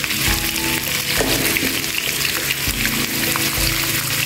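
Catfish steaks (cá ngát, gray eel-catfish) sizzling steadily as they shallow-fry in hot oil with whole garlic cloves in a nonstick pan.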